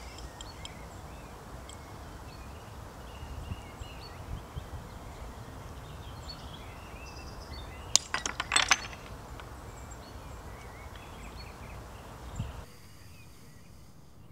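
A quick run of sharp clinks about eight seconds in, from broken clay pigeon fragments being handled on a wooden table, over steady outdoor background noise with faint bird chirps.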